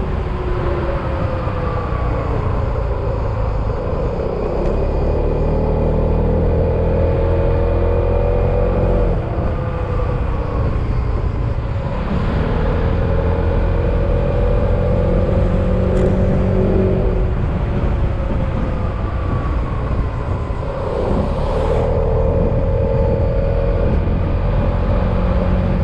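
Yamaha XMAX scooter engine running under way, with wind and road rumble beneath it. The engine pitch dips three times, about 4, 12 and 21 seconds in, and each time climbs slowly again.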